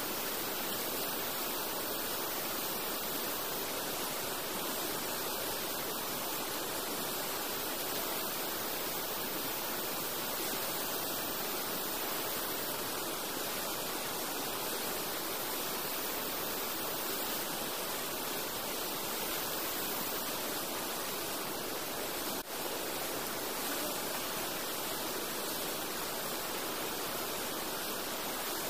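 Steady rushing of a river in heavy flood: an even, unbroken hiss of water. A brief click about 22 seconds in.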